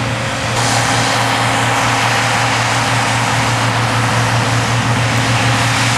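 Combine harvester running steadily while harvesting corn: a constant low engine hum under an even machinery rush that gets louder about half a second in.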